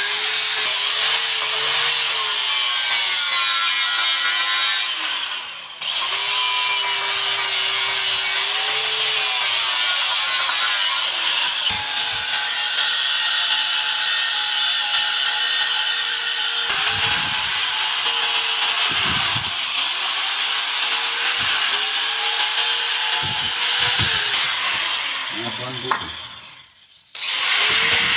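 Electric grinder running with a steady rasping noise, its motor pitch sagging again and again as it is pressed into the work while finishing the axe. The sound drops out briefly about five seconds in and again near the end.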